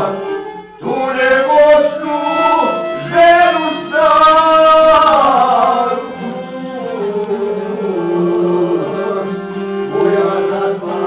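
Male voices singing a folk song in full voice, accompanied by a bowed violin and a strummed long-necked lute. The singing breaks off briefly just under a second in, then comes back and is loudest in the middle.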